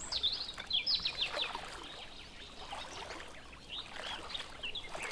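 Birds chirping in runs of short, quick calls that each drop in pitch, over a soft trickle of water.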